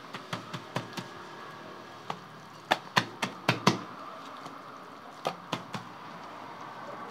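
Irregular sharp taps and knocks on a wide steel tantuni pan as a gloved hand presses a flatbread sheet down onto it, about a dozen, the loudest bunched around three to four seconds in, over a faint steady hiss.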